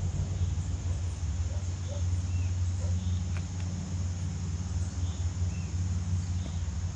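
Pond-side ambience: insects buzzing steadily, with a few short bird chirps scattered throughout, over a steady low rumble that is the loudest sound.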